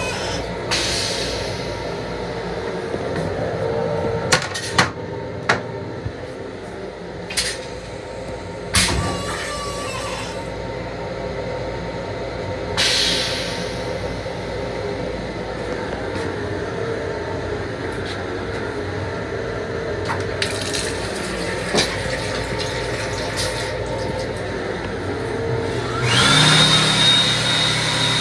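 Steady running noise of a Long Island Rail Road M7 electric railcar, heard inside its small restroom, with scattered clicks and rattles. Near the end a louder whoosh carrying a steady high whine swells for about two seconds and dies away.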